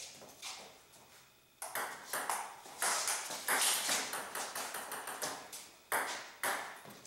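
Table tennis rally: the ball clicking sharply off the paddles and the table in quick succession, the strokes beginning about a second and a half in after a quieter start.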